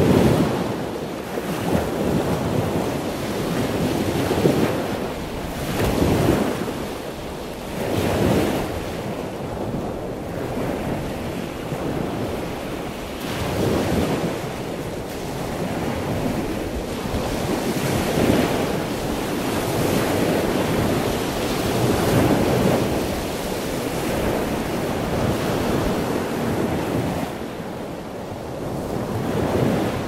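Ocean waves breaking and washing, a steady rush of surf that swells and falls back every few seconds.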